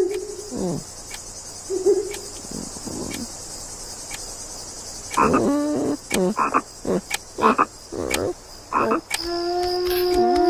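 Crickets chirping steadily, with frogs croaking at the start and a run of short pitched croaking calls from about five to nine seconds in. Near the end a held pitched note comes in.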